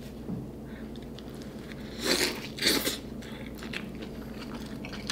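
A person biting into a thick burger and chewing it. There are two louder bite sounds a little over two seconds in, then fainter chewing clicks.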